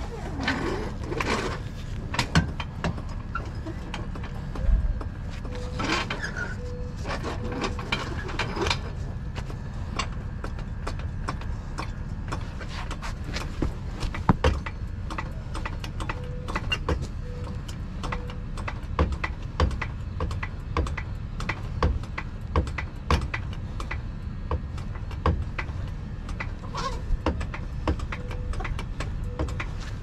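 Footsteps on concrete and irregular knocks and rustles of a body-worn camera and work clothing, over a steady low rumble.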